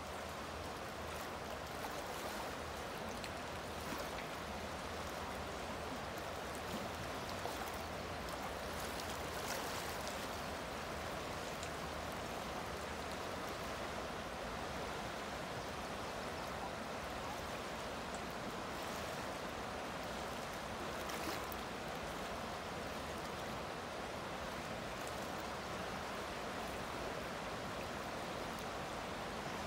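A wide river rushing over shallow rapids: a steady, even rush of water.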